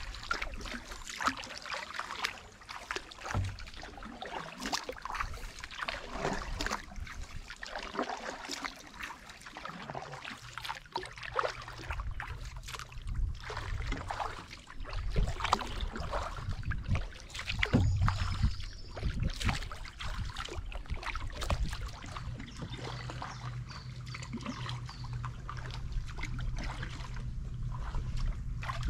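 Canoe paddle strokes dipping and pulling through creek water, with splashes and water trickling off the blade, in an uneven run of many short strokes.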